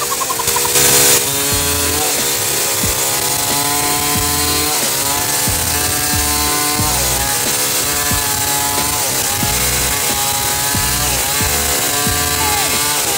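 Petrol chainsaw running at high revs while cutting through a felled tree trunk. Its engine pitch sags briefly every couple of seconds as the chain bites into the wood, then climbs back.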